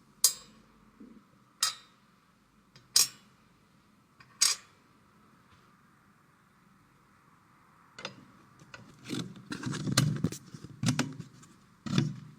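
Computer parts being handled during assembly: four sharp clicks about a second and a half apart, then after a pause a run of knocks and clatter near the end.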